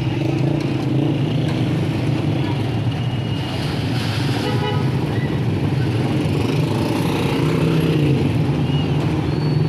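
Motorcycle engine of a Philippine tricycle (motorcycle with sidecar) running steadily amid road traffic, with a short horn toot about halfway through.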